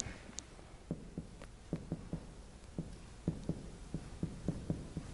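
Marker writing on a whiteboard: a string of faint, short taps and strokes, a few a second, unevenly spaced.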